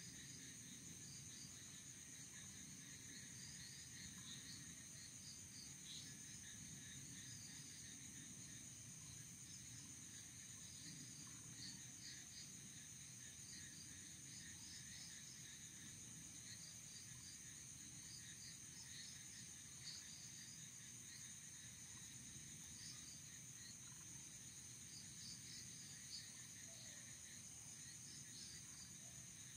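Faint night chorus of crickets: high, steady trilling with many short chirps scattered over it, and a low rumble of background noise underneath.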